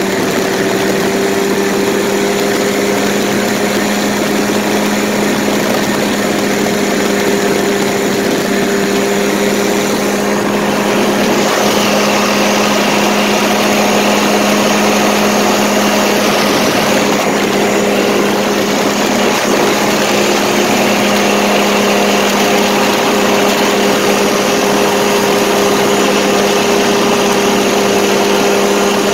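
Paramotor engine and propeller running steadily in flight, a constant drone that gets a little louder and brighter about eleven seconds in.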